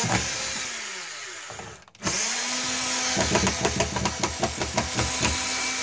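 Cordless drill driving a 3-inch star-drive deck screw into a wooden stud. A first short run winds down, then a longer steady run follows, with rapid even clicking, about five a second, over its second half.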